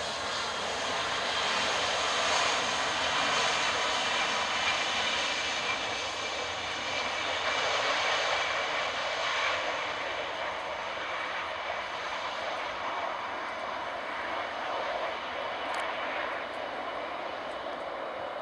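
Avro Vulcan XH558's four Rolls-Royce Olympus jet engines running on the runway: a steady jet roar that slowly eases off over the second half.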